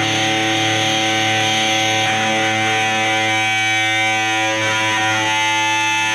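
Rock music with distorted electric guitar holding long sustained chords that change pitch a couple of times, without drum hits.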